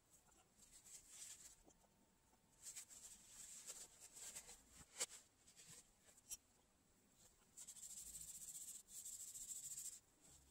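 Faint handling noise from small plastic and metal gimbal parts being worked by hand: light scrapes and clicks, one sharper click about halfway, then a couple of seconds of rapid fine scraping near the end.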